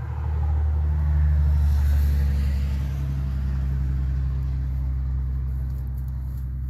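Low, steady engine rumble that swells about a second in and then slowly fades.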